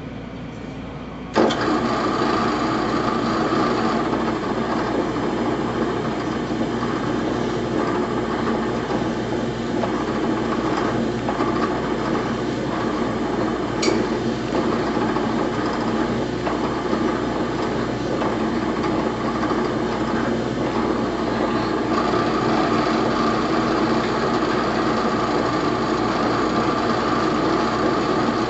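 Electric drill starting abruptly about a second in and running steadily with a whine, drilling lead counterweights out of grand piano keys.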